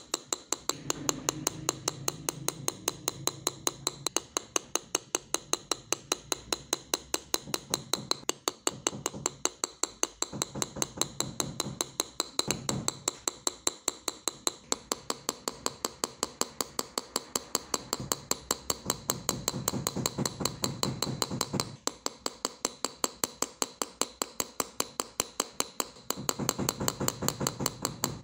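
Small hammer tapping a steel chasing or tracing punch along the design on a thin metal sheet: light, sharp metallic taps in an even rhythm of about four a second.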